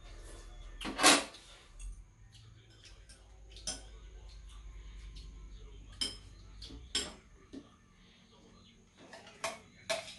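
Spoons and chopsticks clinking against stainless steel bowls and a metal serving tray during a meal: about half a dozen separate clinks, the loudest about a second in.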